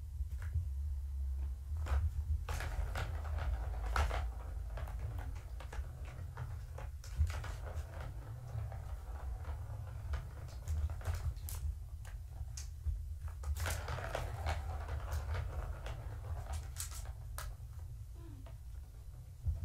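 Kittens batting the ball around a Catit plastic ball-track toy: irregular clicks and rattles as the ball runs and knocks in the track, in clusters with quieter gaps, over a steady low hum.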